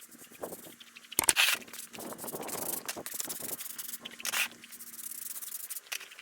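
Bristles of a stiff brush scraping across block paving in irregular strokes, with a faint steady hum underneath.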